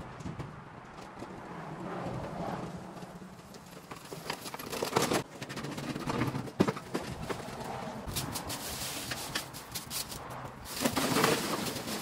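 Lawn mower pushed over paving and tiles, its wheels and frame clattering and knocking unevenly, with footsteps.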